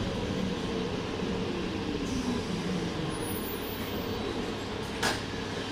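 Flexity tram running with a steady rumble and a faint whine falling in pitch, with one sharp click about five seconds in.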